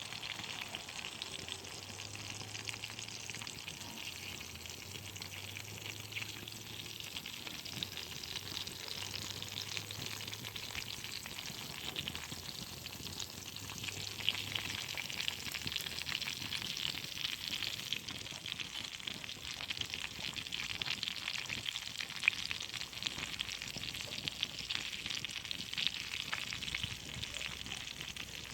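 Food frying: a steady hot sizzle with a constant patter of small crackles and pops.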